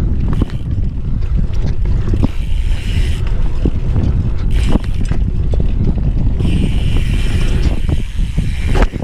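Heavy wind buffeting the microphone while a dirt jumper bike is ridden, with scattered clicks and rattles from the bike and two stretches of hiss, one before the middle and one about three-quarters through.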